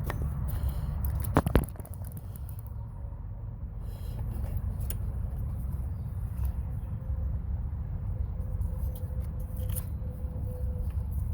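Serpentine belt being worked off the engine's pulleys by hand, with a couple of sharp knocks about a second and a half in and a few faint clicks later, over a steady low rumble.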